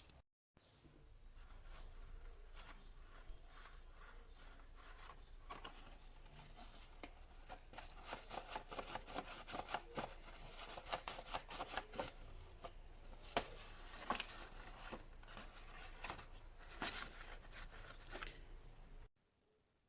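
Paper being handled for a craft: rustling and rubbing with many small clicks and taps. It cuts off suddenly near the end.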